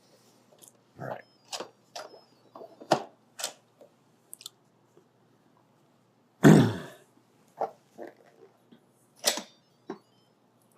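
Electric pressure cooker (Instant Pot) lid being unlocked and lifted off: a string of short clicks and knocks, with one louder clunk about six and a half seconds in.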